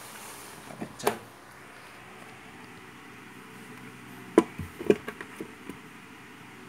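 A few sharp knocks and clicks on a plastic tub enclosure with a grid floor, one about a second in and a louder pair around the middle, over faint room noise.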